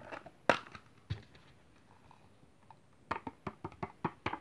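Thin clear plastic cup crinkling and clicking as it is handled and tipped over a plastic tub: two separate clicks in the first second or so, then a quick run of crackles near the end.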